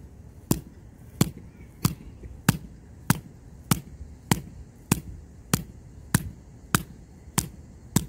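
Small hatchet chopping into the dry wood at the base of a dead tree trunk: about a dozen sharp, evenly spaced blows, roughly three every two seconds.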